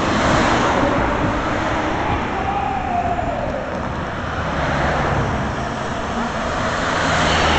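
A convoy of road vehicles driving past one after another: a Volkswagen van, a saloon car and a small box truck. Their engine and tyre noise swells as the van goes by near the start and again as the car and truck pass in the second half.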